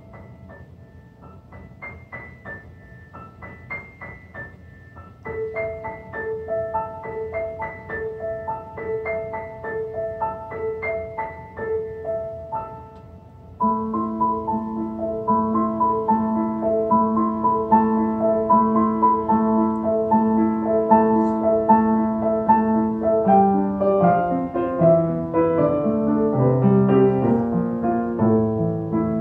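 Solo grand piano playing a quiet, repeating figure of high notes; about five seconds in a middle-register line joins, and at about fourteen seconds the playing grows suddenly louder with fuller, lower chords, bass notes moving underneath near the end.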